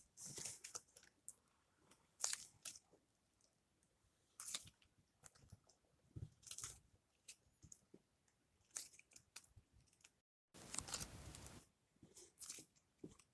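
Soft, scattered crunchy and crinkly clicks from slime and its plastic packaging being handled, with a longer rustle about eleven seconds in.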